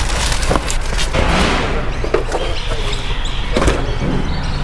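Cardboard boxes being shifted and pulled out of the back of a van: repeated thuds and knocks, with a longer scraping of cardboard about a second in, over a steady low rumble.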